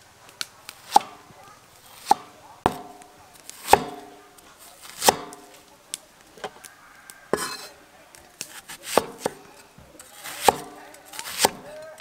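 Meat cleaver chopping an onion into wedges on a thick round wooden chopping board: about a dozen sharp knocks, roughly one a second and unevenly spaced, each with a short ringing after it.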